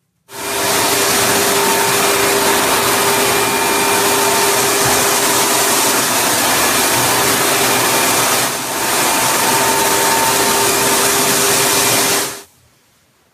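Single-disc rotary floor sanding machine with a dust-extraction hose, running steadily with a motor whine over a loud rushing noise. It starts abruptly, dips briefly about eight seconds in, and cuts off suddenly near the end.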